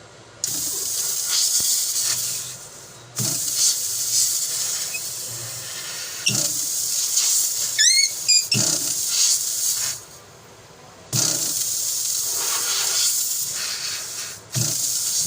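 Pressurised gas hissing out of a refrigeration line or fitting in repeated bursts, each turned on and off abruptly and lasting one to four seconds. A short squeak comes about eight seconds in.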